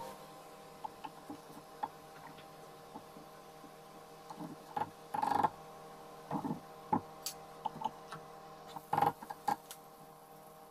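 Wooden spoons ticking and knocking against a pot as a ring of sfenj dough fries in hot oil, with light crackles from the oil. There are sparse light ticks, a few louder clatters in the second half, and a faint steady hum underneath.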